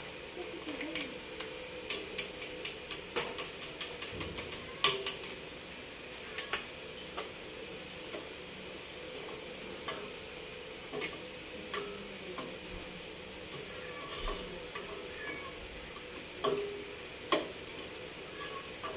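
A utensil clicking and knocking against a cooking pot as the chicken feet are stirred: quick clusters of clicks over the first five seconds, sparser ones after that. Underneath is a faint, steady hiss from the pot.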